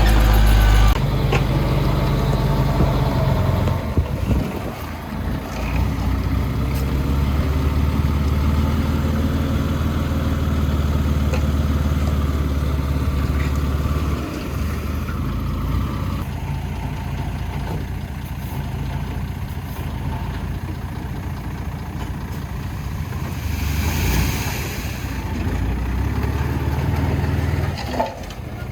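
Heavy diesel machinery engine running with a steady low drone that shifts in pitch and load a few times. A short hiss comes about three-quarters of the way through.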